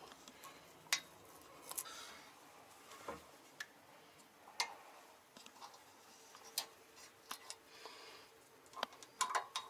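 Scattered light clicks and knocks, about a dozen spread irregularly, from the fireplace door and its fittings being handled.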